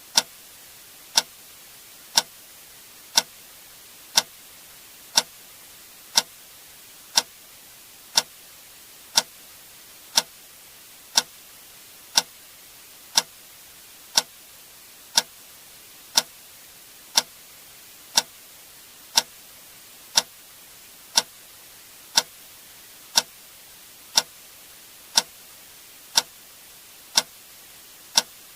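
A click sound effect repeating exactly once per second, each click short and sharp, over a faint steady hiss.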